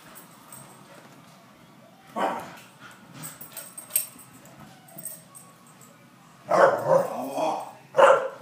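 Soft-coated wheaten terrier barking: a single bark about two seconds in, then a run of loud barks near the end.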